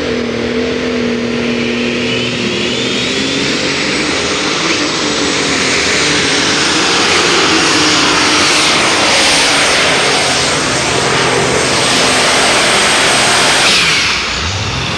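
Pulling tractor's engine at full throttle under load during a pull, a loud steady rush with a high whine running through it, dropping off sharply near the end as the power comes off.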